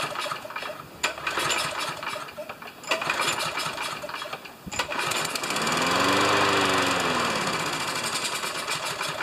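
Briggs & Stratton engine of a Craftsman push mower running rough, with uneven popping and sputtering. About halfway through it surges up in speed and falls back again. It is running oil-fouled after its crankcase was overfilled, with the carburettor thought to be full of oil too.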